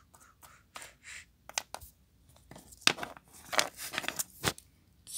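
Small toy pieces being handled and set down on a board: a run of light clicks, taps and scrapes, sparse at first and busiest in the second half.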